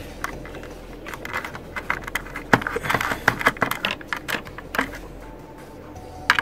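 Small computer screws being driven into an SSD mounting bracket with a hand screwdriver: irregular light clicks and taps, with a short scrape about three seconds in.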